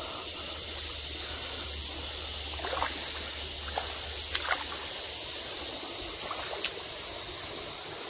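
Shallow stream running steadily over a sandy bed, with a few soft splashes as bare feet wade through it.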